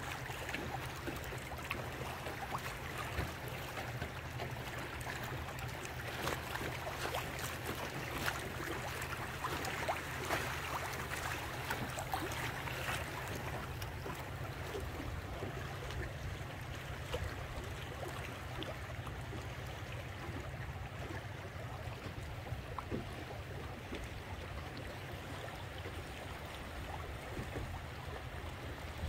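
Moving water rushing and splashing against a boat's hull as it makes way through a tidal current, over a steady low rumble. The splashing swells slightly partway through, then settles.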